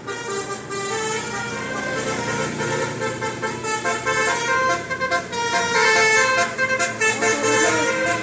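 Indonesian bus telolet horn, a set of electric air trumpets, playing a tune: several horn tones sound together and change pitch in quick steps.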